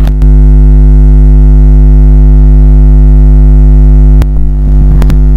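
Loud, steady electrical mains hum, a buzz with many overtones, with a few brief clicks near the start and about four and five seconds in.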